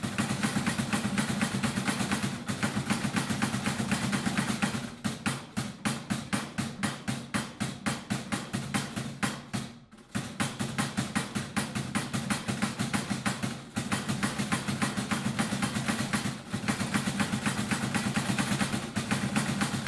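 Wooden Easter clappers (klepáč) knocking in a fast, steady clatter. The knocks space out to about five a second in the middle, with a brief pause before the dense clatter resumes. This is the Good Friday clapping that stands in for the silenced church bells.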